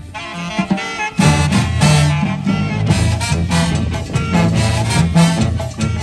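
Oaxacan brass banda playing live: tuba bass line, saxophones and trumpets over drums. The bass and drums drop out for about the first second, then the full band comes back in.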